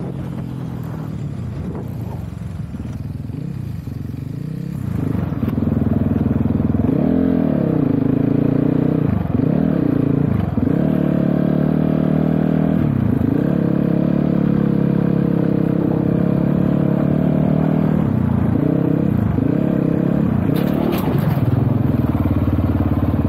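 GPX Moto FSE300R dirt bike engine running under way, quieter at first and getting louder about five seconds in. From then on it revs up and drops back again and again as the throttle is worked.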